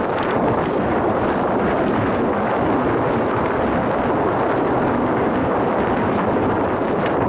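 Steady wind rush on the microphone of a fast-moving mountain bike, mixed with its tyres rolling over a dirt trail, and a few sharp rattles of the bike near the start and just before the end.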